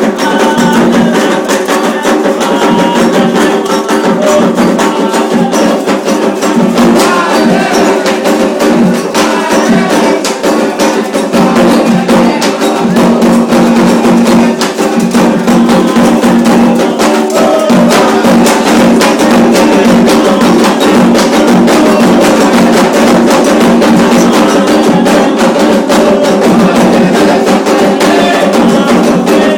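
Candomblé ceremonial music: hand drums and a sharp, wood-block-like struck percussion keep a dense, steady rhythm, loud and unbroken, with sustained pitched tones running underneath.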